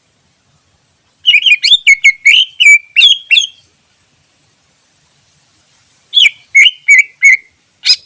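Green leafbird (cucak ijo) calling: a fast string of about ten sharp, chattering whistled notes, then a pause, then a shorter burst of five notes and one last sharp note at the end.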